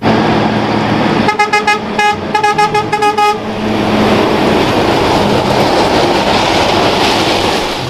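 Heavy truck with a trailer passing close by, sounding several short blasts of its horn between about one and three and a half seconds in, followed by engine and tyre noise as it goes past.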